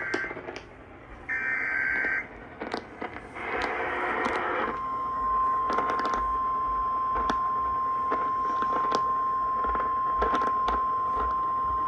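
NOAA Weather Radio alert coming in over the air: short buzzy SAME data bursts in the first few seconds, then the steady 1050 Hz warning alarm tone from about five seconds in. Static crackles run throughout.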